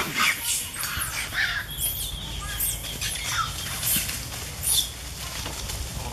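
A scattering of short, high-pitched animal chirps and squeaks, some sliding down in pitch, with brief crackling noises between them.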